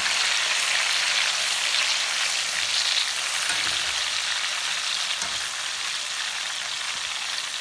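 Thin slices of raw Nendran banana deep-frying in hot refined oil, sizzling hard, with a wire skimmer stirring through them. The oil is still bubbling vigorously, the sign that the chips are not yet cooked through.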